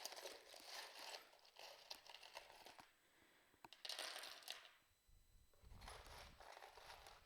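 Faint clinking and rustling of small metal and bead costume jewelry being picked through by hand, in two short bouts: at the start and again about four seconds in.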